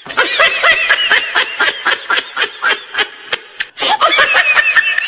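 A person laughing in a rapid run of high-pitched giggles, about four or five a second, with a brief pause a little after halfway.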